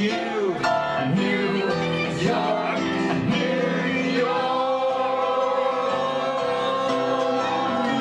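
A song with a man singing. About halfway through, the voices settle into long held notes.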